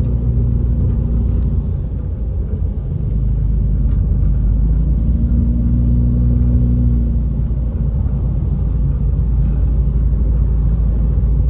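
Car cabin road noise while driving: a steady low rumble of engine and tyres on wet pavement, with the engine hum growing stronger for a couple of seconds about five seconds in.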